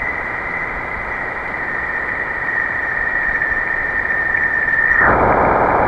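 Space sound recording (spacecraft radio and magnetic-wave data turned into sound): a steady hiss with a high, held whistle-like tone. About five seconds in the tone fades out and the hiss swells louder and fuller.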